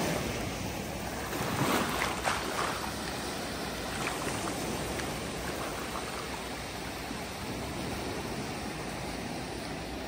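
Small ocean waves breaking and washing up a sandy shore: a steady surf wash, louder for a moment about two seconds in as a wave spills in with fizzing foam.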